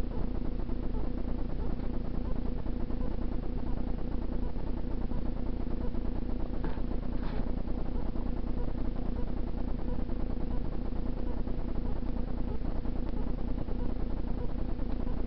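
Steady hiss with a low electrical hum, nothing else standing out; two brief faint high sounds about seven seconds in.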